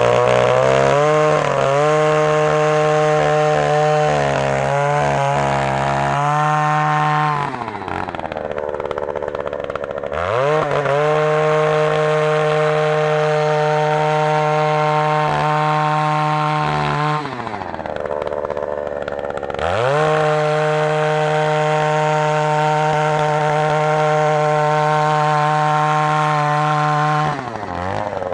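Oshima 2PS earth auger's 54 cc two-stroke engine running at full throttle as the 150 mm auger bores into soil. The revs fall to idle twice, about seven and seventeen seconds in, and rise again a few seconds later, then drop back near the end.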